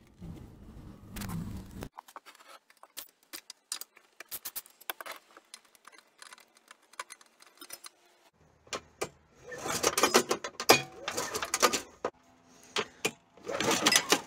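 Metal clinking and rattling from hand tools and parts being handled on a small Honda G35 engine. Scattered light clicks give way to two denser, louder runs of rattling, one near the middle and one near the end.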